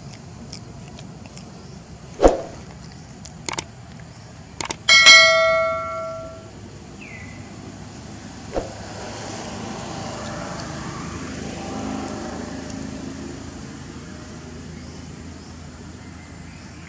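Subscribe-button animation sound effects: a thump, two quick double clicks, then a bright bell ding that rings and fades over about a second.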